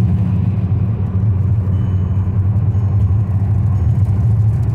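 Car driving on a wet road, heard from inside the cabin: a steady low rumble of engine and road noise with a hiss of the tyres above it.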